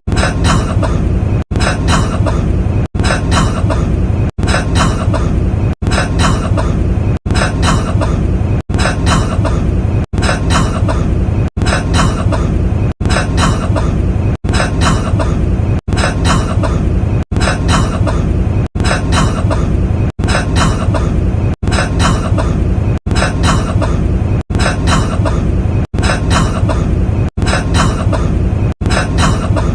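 A man's cough, the same short recorded clip looped over and over, repeating about every second and a half with a brief break between repeats.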